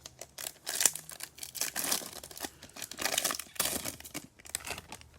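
Foil wrapper of a Bowman Chrome baseball card pack being torn open and crinkled in the hands, an irregular run of crackles and rips.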